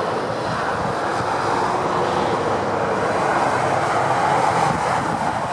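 Steady rush of motorway traffic: tyre and engine noise from passing lorries and cars, swelling slightly about four seconds in as an articulated lorry goes by.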